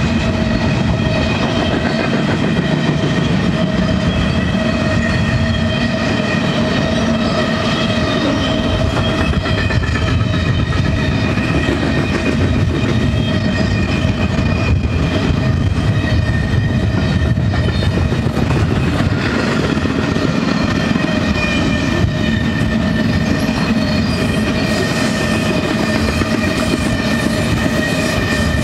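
Double-stack intermodal freight train's well cars rolling past at close range: steel wheels on the rails making a loud, steady rumble, with steady ringing tones over it.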